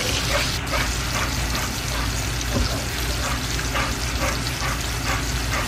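Thick condensed-milk and egg-yolk yema mixture cooking in oil in a nonstick frying pan over medium heat, sizzling softly while a spatula stirs and scrapes through it.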